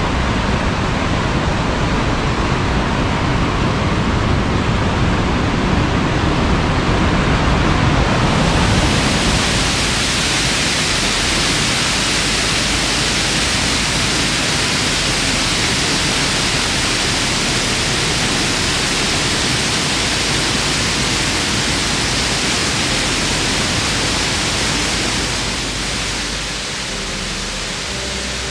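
Fast-running whitewater of the Merced River, running high with snowmelt: a loud, steady rush. About eight seconds in it turns suddenly brighter and hissier, and it eases a little near the end.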